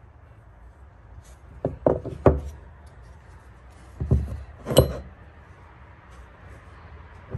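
Five sharp knocks over a low steady hum: three in quick succession about two seconds in, then two more a little later, the last ringing briefly.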